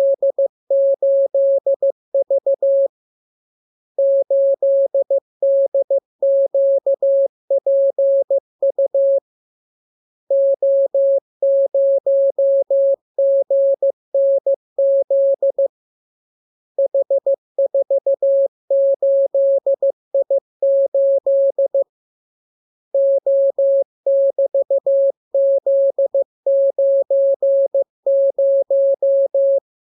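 Morse code (CW) sent as a single steady beeping tone, keyed on and off in short dots and longer dashes. The code comes in runs of a few seconds, each followed by a pause of about a second.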